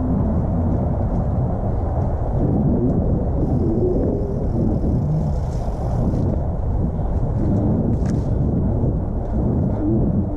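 2017 Specialized Stumpjumper mountain bike rolling along a dirt singletrack: a steady low rumble of tyres and wind on the GoPro's microphone, with a few light clicks and rattles from the bike.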